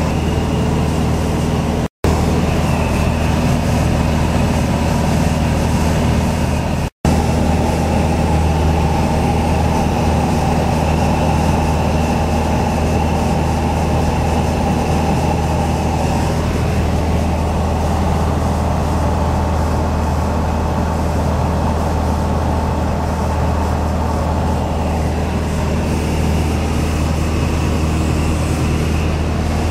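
Light single-engine airplane's piston engine and propeller droning steadily, heard from inside the cockpit. The sound cuts out for an instant about two seconds in and again about seven seconds in.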